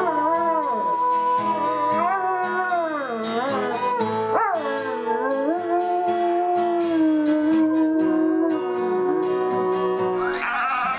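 A dog howling along to music, with long wavering howls that slide up and down over steady held notes.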